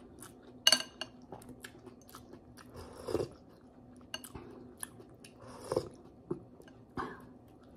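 Close-up eating sounds of a person eating pork hock soup: chewing and lip-smacking with small wet mouth clicks, a sharp ringing clink of a metal spoon against the glass bowl about 0.7 s in, and a few short sips of broth from the spoon.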